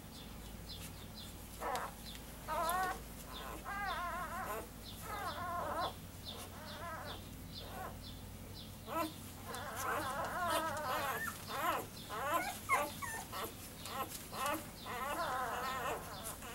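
Newborn Basset Hound puppies squeaking and whining while they nurse: many short, wavering, high cries, several at once, coming thickest from about nine seconds in.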